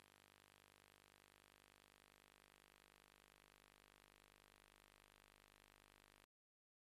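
Near silence: a faint steady hiss with a low hum underneath, cutting off to dead silence about six seconds in.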